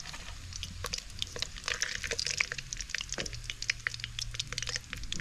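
Whole paddy-field rats deep-frying in hot oil in an aluminium pan: a sizzle broken by many sharp crackling pops of spattering oil.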